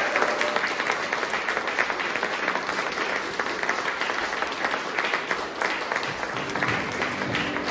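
Audience applauding: many hands clapping at once in a hall.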